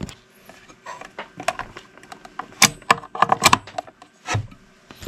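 Irregular clicks, knocks and rattles of hands handling the amplifier's wiring and connectors, with a cluster of sharper clicks a little past halfway and a dull knock near the end.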